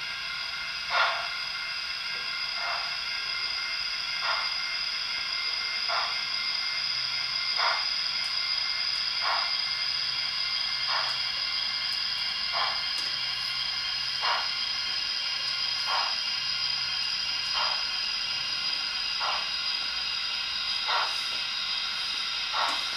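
Digital sound decoder in a Hornby OO gauge model of the Princess Coronation Pacific 'Sir William A Stanier FRS' playing steam locomotive sound through its small speaker: a steady steam hiss with slow, evenly spaced exhaust chuffs about every second and a half as the model creeps forward.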